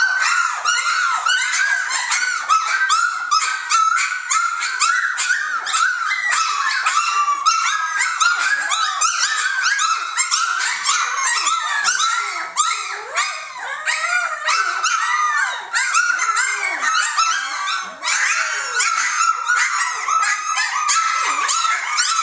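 A litter of three-week-old Jamthund (Swedish Elkhound) puppies whining and squealing together: many short, high cries that rise and fall, overlapping without a break.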